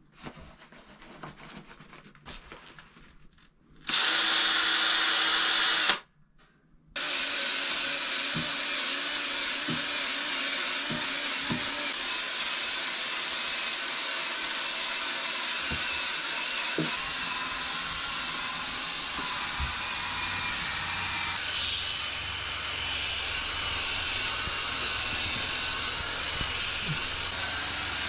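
A hand-held cordless power tool runs briefly about four seconds in, stops for a second, then runs steadily, working an abrasive head against the old wood of a log wall and cleaning its surface.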